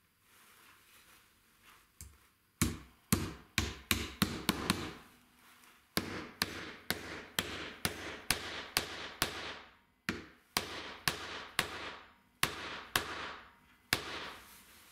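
Small hammer striking a steel T-nut, driving it into a wooden strip: sharp metallic taps in three runs of blows, about two a second, with short pauses between runs.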